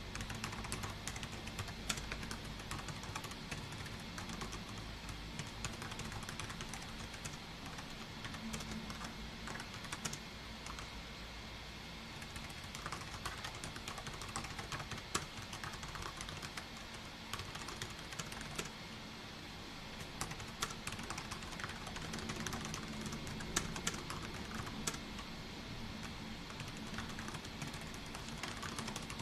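Continuous typing on a computer keyboard: a fast, uneven run of key clicks, easing briefly about two-thirds of the way through.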